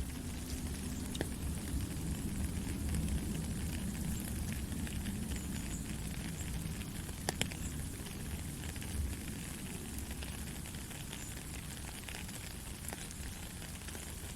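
Steady rain pattering, with scattered single drops ticking and a sharp drip about seven seconds in, over a low rumble.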